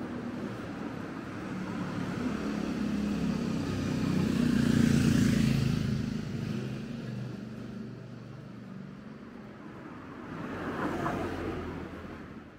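A motor vehicle passing on the street, its engine sound building to a peak about five seconds in and fading away. A second, lighter vehicle passes near the end.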